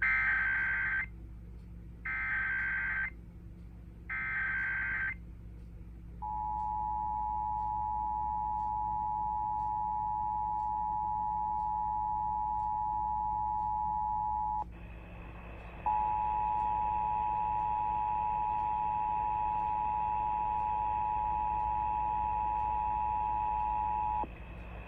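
Emergency Alert System test alert: three short warbling data bursts of the SAME digital header, each about a second long and a second apart, then the steady two-tone EAS attention signal. The attention signal breaks off for about a second partway through and then resumes.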